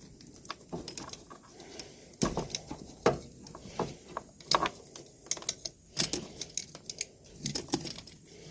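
Hands working a car wiring harness: irregular clicks, crinkles and rustles of wires, plastic and tape being handled, with a few sharper clicks about two, four and a half and six seconds in.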